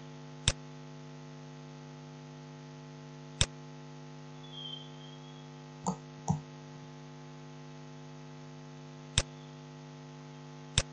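Steady electrical mains hum picked up in the recording, with about six sharp computer-mouse clicks spread through it.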